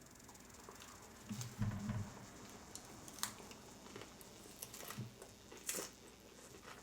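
Quiet eating at a table: scattered light clicks and taps of utensils on dishes, with a couple of soft low thuds about one and a half seconds in.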